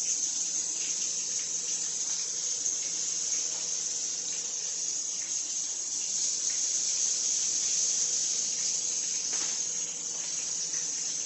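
Chicken patties sizzling in oil in a frying pan: a steady high hiss, with a few light clicks and taps over it.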